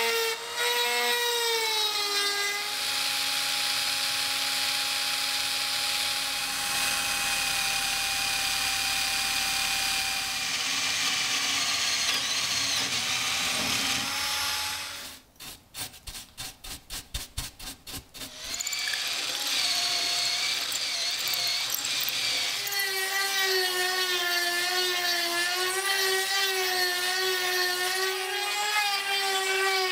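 A high-speed rotary tool and a drill press grinding and drilling out the rivet that holds a bronze guard on a rusty steel knife blade. The whine wavers in pitch as the rotary bit is pressed on, holds steadier while drilling, and breaks into a series of rapid taps for a few seconds about halfway through.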